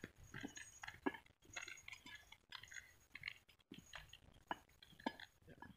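Faint, irregular crunching and clicking of footsteps on a dirt mountain trail.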